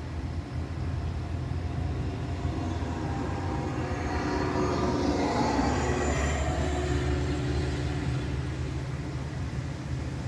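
A vehicle passing by out of sight: a rushing sound that swells about four seconds in and fades away a few seconds later, over a steady low rumble.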